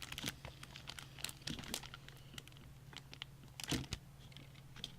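Small plastic clicks and handling noises as a RAM stick is pressed into a motherboard memory slot, with a slightly louder knock about three-quarters of the way through; the slot latch has not yet clicked shut. A faint steady hum underneath.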